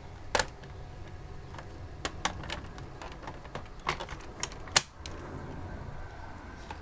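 Irregular light clicks and knocks of an object being handled and set in place, about seven or eight in all, sharpest about half a second in and again near the five-second mark.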